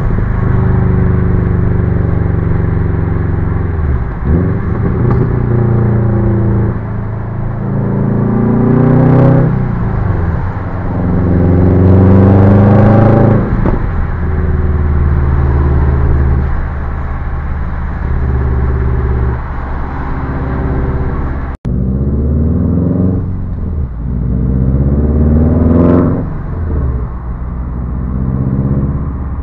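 2012 Subaru WRX's turbocharged flat-four, through a catless downpipe and a Tomei Expreme titanium cat-back exhaust, heard from inside the cabin as the car accelerates through the gears. The engine note rises in pitch and drops away at each gear change, about four times, with a stretch of steady cruising in the middle.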